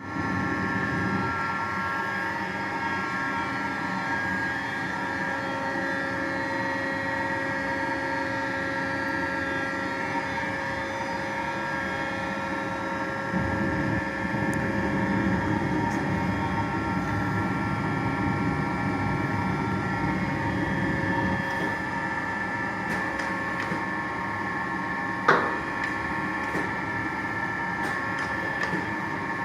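Gildemeister NEF CT40 CNC lathe running: a steady machine hum with several held whining tones, growing somewhat fuller about halfway through, and one sharp knock near the end.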